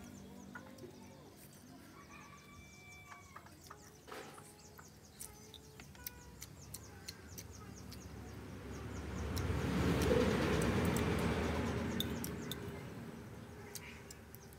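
Rural yard ambience: chickens clucking and small birds chirping, with a broad rushing noise that swells and fades about two-thirds of the way through.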